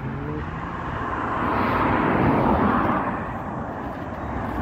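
A road vehicle passing by under the railway bridge: its tyre and engine noise swells to a peak a little after two seconds in, then fades.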